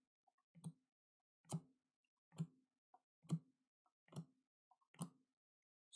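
Baseball cards being flipped one by one from the front of a hand-held stack to the back. Six soft card flicks come a little under a second apart.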